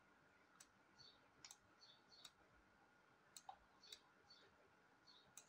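Faint computer mouse clicks, about six scattered sharp clicks over near silence, as the mouse drags an extrude handle in 3D software.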